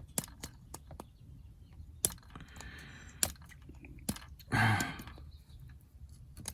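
A sharp knife blade scraping and chipping hardened super glue and baking soda filler off a small metal part: irregular sharp clicks and short scrapes, with a louder burst about four and a half seconds in.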